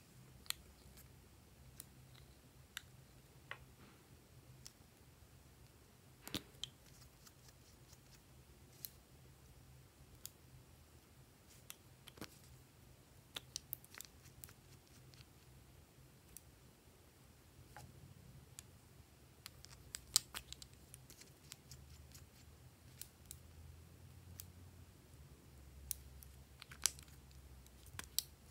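Metal scissors snipping through lipsticks, lip balm and crayon sticks: scattered sharp snips and clicks at irregular intervals, over a faint low hum.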